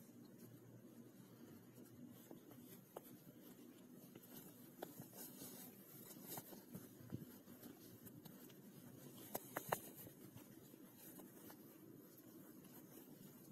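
Faint rustling of trouser fabric being bunched and pushed along by hand as a ribbon on a bodkin is worked through the waistband casing. A few small clicks come through it, with a quick cluster of them about two-thirds of the way in.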